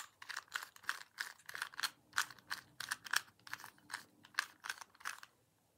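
A 2x2 speed cube being turned rapidly by hand, its plastic layers clicking several times a second as they move easily. The clicking stops shortly before the end.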